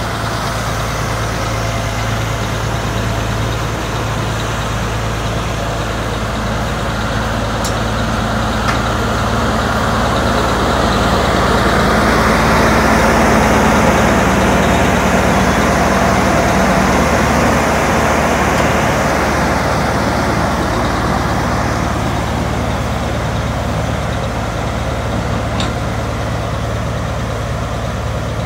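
Diesel engines of Peterbilt heavy rotator wreckers running with a steady low hum. A wider rush of engine noise swells up from about ten seconds in, peaks midway and fades again by about twenty seconds.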